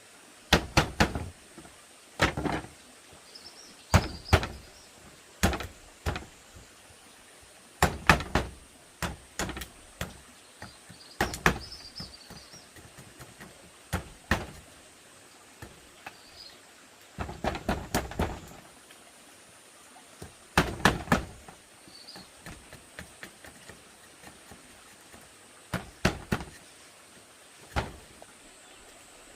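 Irregular knocks and thuds, some single and some in quick clusters of two or three, from bamboo being worked by hand.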